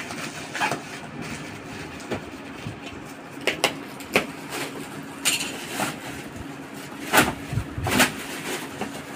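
Plastic courier packaging and bubble wrap crinkling and rustling in irregular bursts as a parcel is cut open and a boxed tripod is pulled out of its wrapping, over a faint steady hum.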